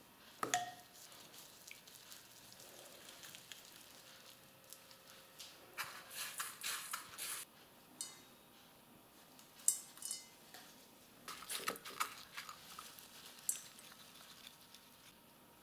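Quiet, intermittent rustling of plastic food gloves and shredded coconut as sticky candy balls are rolled in coconut in a stainless steel bowl, in a few short bursts.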